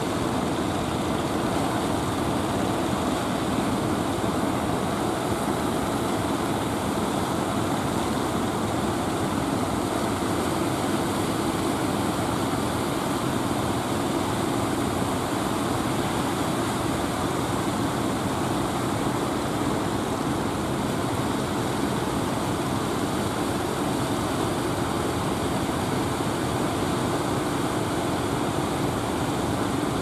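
Engines of motorised outrigger fishing boats running in a steady drone, over a continuous wash of surf.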